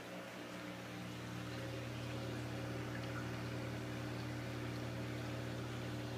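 Steady low electrical hum with a faint hiss from running aquarium equipment, the tank's filter and pump motors.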